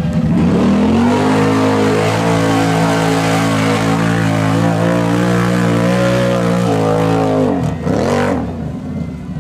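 ATV engine held at high revs under heavy load as the quad pushes through deep mud. About three-quarters of the way in the throttle comes off, and the engine revs up and down twice.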